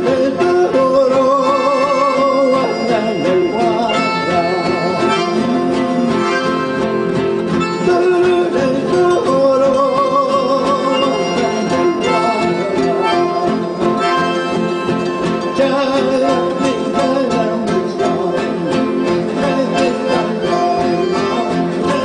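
Live acoustic band music: several nylon-string guitars strumming and picking with an accordion, and a man singing the melody.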